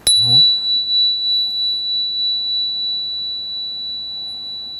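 A small metal chime struck once, ringing a single clear high tone that fades slowly; a brief higher overtone dies away within the first second.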